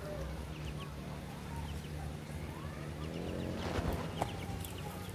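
Chickens clucking faintly, with a few short high chirps scattered through.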